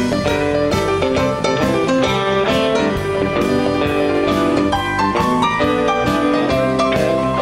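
Live blues-rock band playing with electric guitar, electric bass, keyboards and drums, the drums keeping a steady beat.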